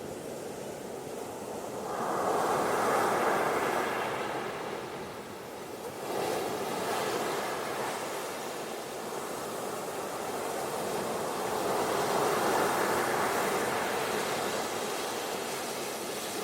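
Ocean surf washing onto a beach. The rushing noise swells and falls back three times, about two, six and eleven seconds in.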